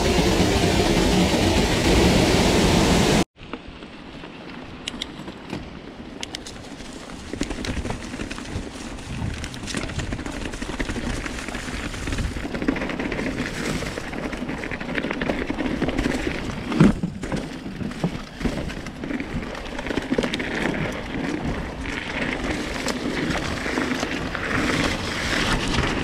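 Waterfall pouring right beside the microphone, a loud steady rush that cuts off abruptly about three seconds in. Then a mountain bike rolling along a dirt trail covered in leaves: tyre and trail noise with scattered clicks and knocks, getting louder toward the end.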